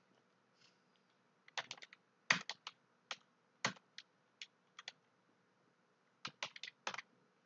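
Computer keyboard being typed on: short, sharp key clicks in irregular bunches, starting about a second and a half in, as a short sentence is typed out.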